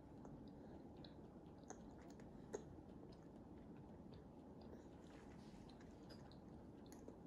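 Near silence with a toddler softly chewing a mouthful of food, and a few faint small clicks, the clearest about two and a half seconds in.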